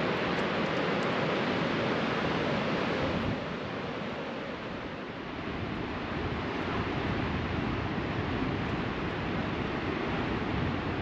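Steady rush of ocean surf with wind buffeting the microphone. About three seconds in it drops abruptly to a quieter, lower rush that slowly builds again.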